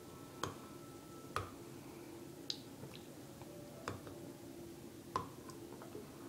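Small, sharp wet clicks from the mouth as fingers tug at dental floss tied around a tooth, about five of them at irregular intervals of roughly a second, over a faint steady hum.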